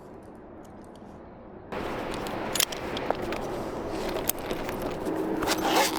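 Outdoor background hiss that jumps suddenly louder a little under two seconds in, with many sharp clicks and knocks scattered through it.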